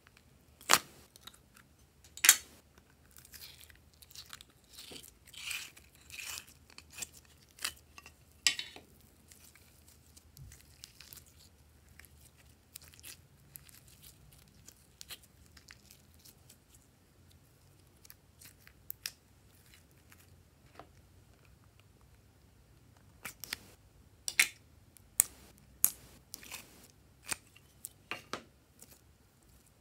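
Glossy slime being squeezed, stretched and pulled apart by hand, giving scattered sharp sticky clicks and crackles. They come thick in the first nine seconds, the two loudest snaps within the first two and a half seconds, fall almost silent for a long stretch, then pick up again near the end.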